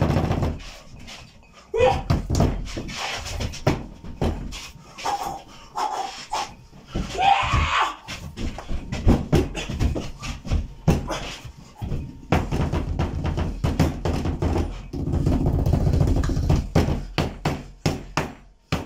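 Bare hands repeatedly striking and slapping a piece of meat on a wooden cutting board to pound and tenderise it, a fast, irregular run of thumps and knocks.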